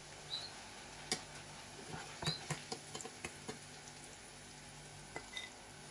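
Flour-dusted onion slices frying in hot oil in a metal saucepan: a steady sizzle, with scattered clicks and scrapes of a metal utensil against the pan.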